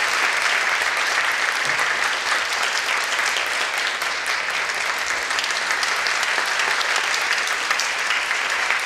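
Audience applauding: the steady clapping of many hands, holding at an even level throughout.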